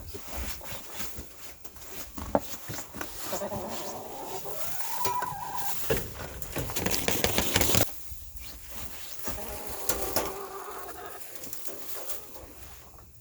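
Chickens clucking now and then, with a louder stretch of rustling, crunching noise about six to eight seconds in.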